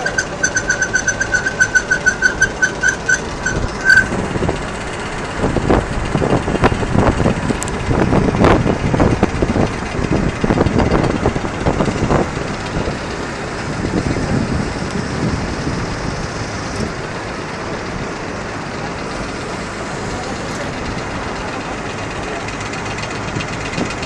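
Coal conveyor belt and stacker-reclaimer running with a steady machine rumble. For the first four seconds an electronic warning beeper sounds about three times a second. From about five to thirteen seconds there is an irregular loud rattling.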